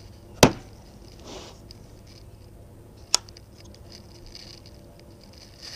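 Wooden case of auger bits shut with a sharp wooden knock about half a second in, then a second, smaller sharp click about three seconds in, with soft handling rustles between.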